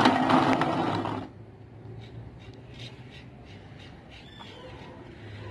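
Marbles rolling and clacking down a track of wooden pieces and building blocks: a loud rolling rumble with sharp clicks for about the first second, then fainter rolling with scattered light ticks.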